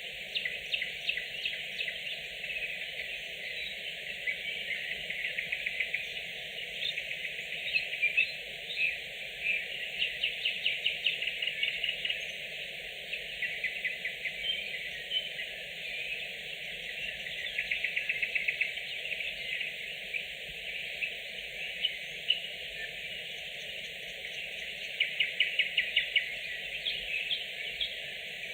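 Nightingale singing at night: varied phrases of whistles and chirps, broken several times by runs of fast, loud repeated notes, over a steady background hiss.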